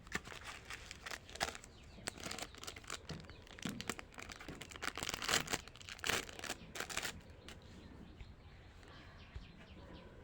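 Plastic candy wrappers crinkling and tearing as sweets are unwrapped, in quick irregular crackles for about seven seconds before dying away.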